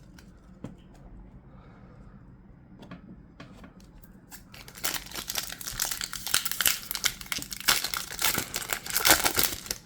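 Foil wrapper of a Pokemon trading-card booster pack crinkling and tearing as it is opened. It starts about halfway in after a few faint light ticks and runs in a dense rustle until near the end.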